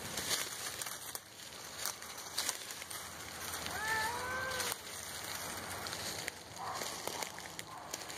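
A cat gives one drawn-out yowl about four seconds in, rising and then falling, with a fainter call near the end: the territorial caterwaul of a tomcat squaring off with another. Dry leaf litter crackles and rustles underfoot.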